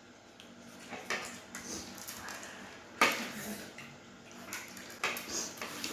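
Plates knocking and scraping on a table as they are nudged while eating noodles hands-free: three clattering knocks about two seconds apart, the middle one loudest, with small rattles between.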